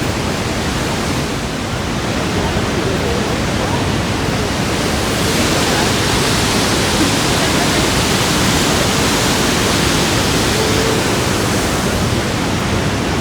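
Steady rushing of water in a canyon, like a river or waterfall below a bridge. It turns brighter and slightly louder about five seconds in, then eases near the end.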